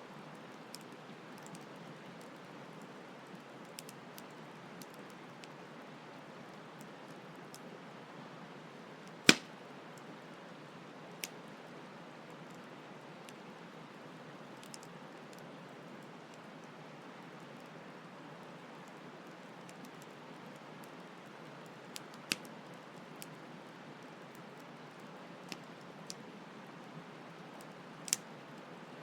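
Campfire crackling: scattered sharp pops and snaps, with one loud pop about nine seconds in, over a steady rush of flowing stream water.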